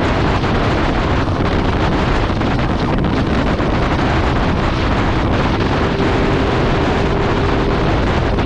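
Wind rushing over the microphone of a motorcycle moving at cruising speed, with the bike's engine running steadily underneath.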